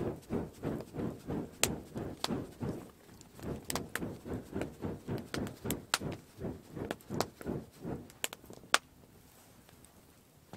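Split-wood campfire crackling with sharp pops over a rhythmic low whooshing, about three pulses a second. The whooshing stops near the end, just after a loud pop.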